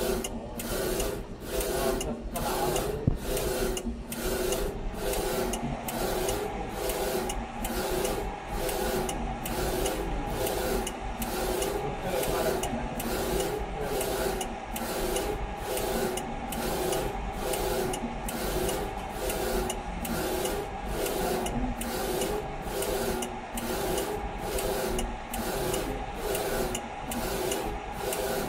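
Flatbed UV printer's print-head carriage shuttling back and forth over a phone case while printing a clear varnish layer: a steady mechanical whirr in even, repeating strokes, about three every two seconds.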